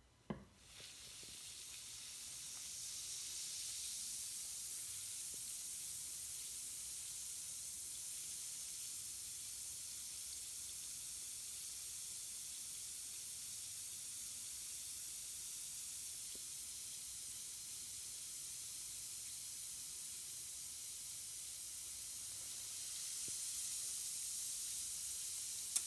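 Lush 'Ectoplasm' jelly bath bomb dropped into bath water with a brief splash, then fizzing with a steady hiss as it dissolves.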